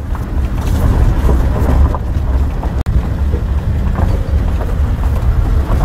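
Steady low rumble of a vehicle driving along an unpaved gravel forest road, engine and road noise together.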